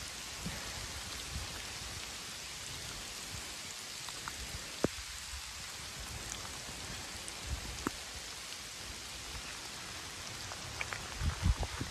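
Heavy rain falling steadily, an even hiss, with a few sharp clicks about five and eight seconds in. Low rumbling bursts come in near the end.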